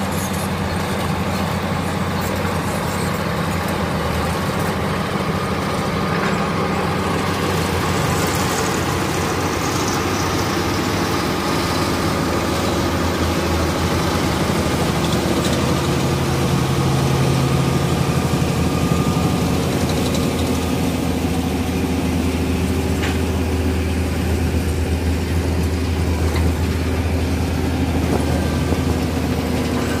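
Dynapac CA25D single-drum road roller's diesel engine running steadily, heard up close. Its deep low hum grows stronger from about halfway through.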